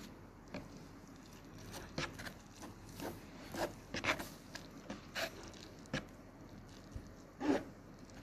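Wooden chopsticks stirring and lifting soaked instant ramyeon noodles in a disposable cup bowl: short, irregular scrapes and taps against the cup with soft wet noodle sounds, the loudest about seven and a half seconds in.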